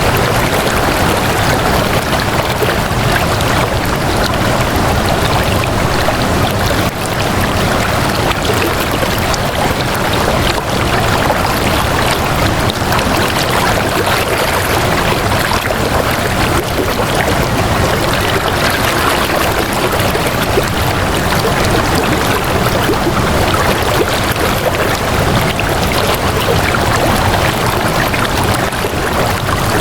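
Flowing water making a steady, unbroken rush, like a stream.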